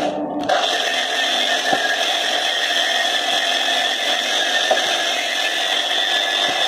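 Variable-speed angle grinder with a wire cup brush running against a copper boiler, scouring the metal clean before brazing. It runs with a steady high whine and hiss, and the brush bites into the copper about half a second in.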